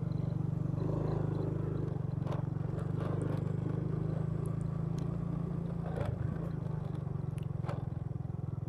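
Motorcycle engine running steadily while riding, with a few scattered clicks and rattles.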